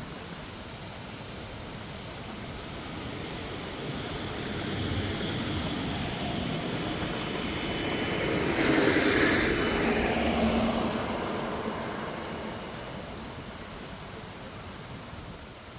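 A road vehicle passing by, its tyre and engine noise swelling to a peak about halfway through and fading away.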